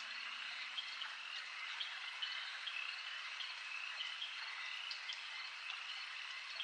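Faint, steady night chorus of chirping crickets and frogs.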